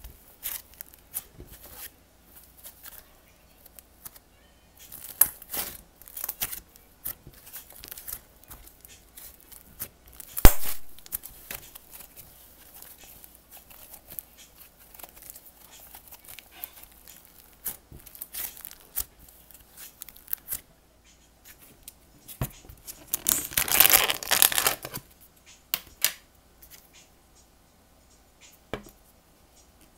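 Hands squishing and stretching slime, making scattered sticky clicks and pops, with one sharp louder pop about ten seconds in and a denser crackling stretch later on.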